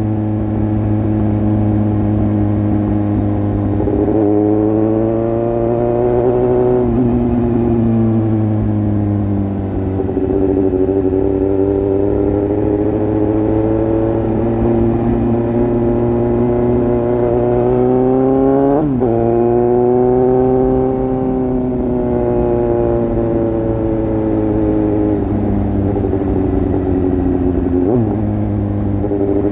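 Suzuki GSX-S750's inline-four engine running through an exhaust with the dB killer removed, the motorcycle under way. The engine note rises and falls with throttle, with sudden pitch changes at gear shifts, and a sharp jump in revs about 19 seconds in.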